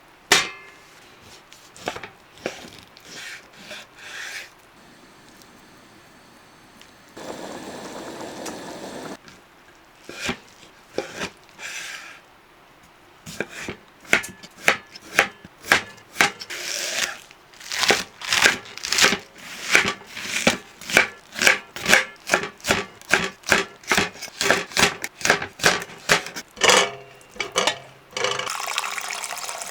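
Kitchen knife chopping food on a wooden cutting board: scattered cuts at first, then a steady run of chops about two a second. A short stretch of rustling noise comes about seven seconds in.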